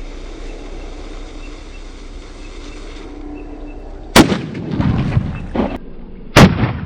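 Homemade bomb in a 500 ml Sting energy drink bottle exploding: two sharp, very loud blasts about two seconds apart, each followed by a rumbling tail, after a few seconds of steady background noise.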